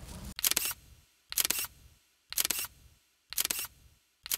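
Camera shutter clicks repeated at a steady pace, about one a second, five in a row.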